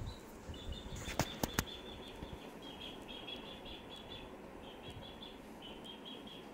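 An eggshell tapped three times in quick succession against the rim of a nonstick pan to crack it, and the egg poured into the masala gravy. A high chirping repeats in short runs throughout.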